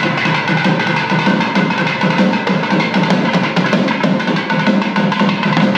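Temple festival music: fast, dense drumming over steady sustained high notes.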